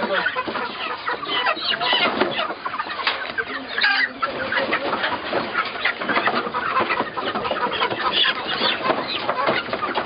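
A crowd of broiler chickens packed into wire cages, calling all at once in a dense, continuous din of overlapping clucks.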